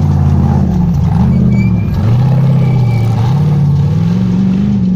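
Off-road competition buggy's engine revving hard, its pitch rising and falling several times as the wheels spin and throw mud on a muddy climb.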